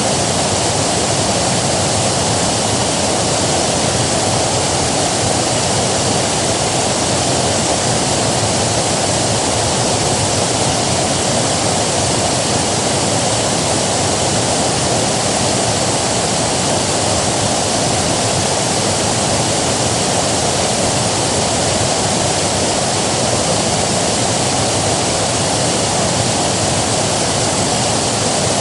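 Steady rush of a river's flowing water, unbroken and full, with no single splashes standing out.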